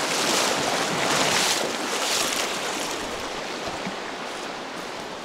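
Rushing water of a fast mountain river, a steady hiss that fades gradually over the few seconds.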